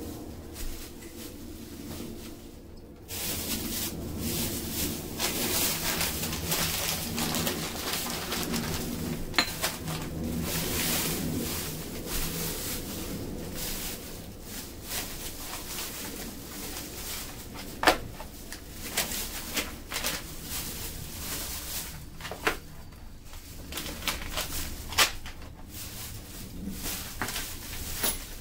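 Thin plastic grocery bags rustling and crinkling as produce is pulled out and handled, with scattered clicks and knocks of items set down on a tile floor, one sharper knock a little past halfway.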